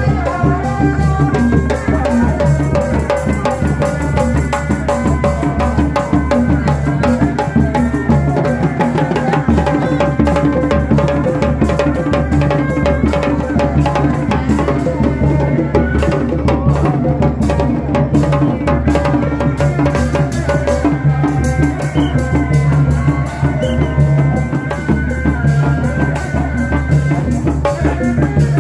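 Sundanese reak ensemble playing live: large dogdog-type frame and barrel drums beaten with sticks in a fast, steady rhythm, with a melody line carried over the drumming.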